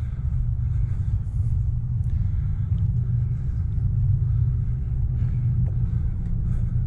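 A steady low rumble with no clear rhythm or pitch changes.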